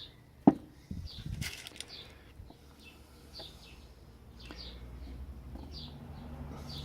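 A sharp metallic click about half a second in and some brief rustling as small padlock parts are handled, over a small bird chirping over and over in short falling notes in the background.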